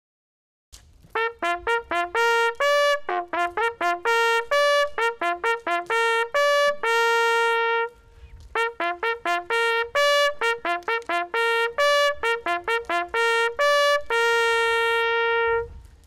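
Brass hunting horn blowing a hunting signal: two phrases of quick short notes on a few pitches, each closing on a long held note.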